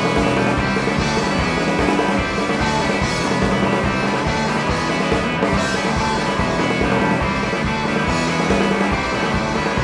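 Three-piece rock band playing live: distorted electric guitar, electric bass and drum kit in an instrumental passage with no singing, a steady driving beat.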